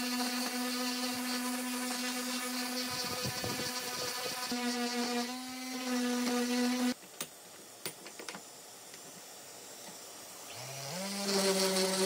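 Electric power tool motor running with a steady whine, wavering for a moment partway through. It switches off about seven seconds in, a few light knocks follow, then the motor starts again near the end, rising in pitch as it spins up.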